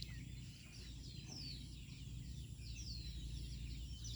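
Birds calling, with many short high chirps that slide downward and repeat several times a second, over a low steady rumble.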